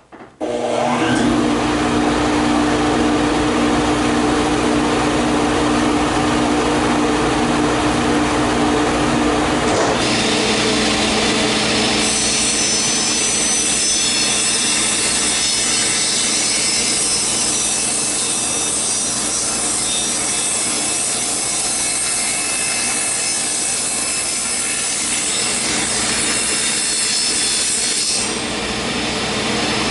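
Power saw starting up and running steadily while cutting wood. Its sound changes about ten seconds in and again shortly after, as the cut goes on.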